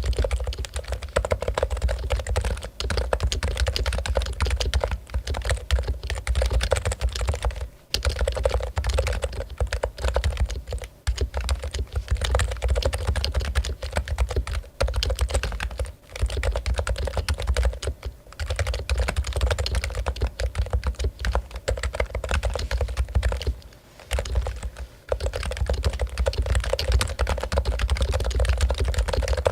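Continuous fast typing on a Topre Realforce keyboard, its electrostatic capacitive rubber-dome-and-spring switches giving a dense stream of muted key strokes. It breaks off in a few brief pauses.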